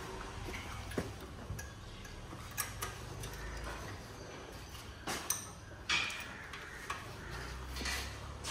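Hand tools working on a car engine: scattered metallic clicks and clinks at irregular intervals over a low steady hum, with a louder cluster of clinks a little past the middle.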